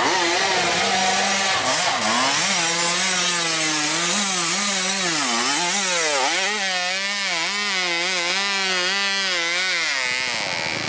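Two-stroke enduro dirt bike engine revving hard under load on a steep dirt climb, its pitch rising and dropping again and again as the throttle is worked, with several sharp dips, then cutting off about ten seconds in.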